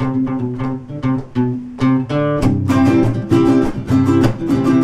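Instrumental intro played on two acoustic guitars, one of them small-bodied. It starts with separate plucked notes, then fills out into strummed chords about halfway in.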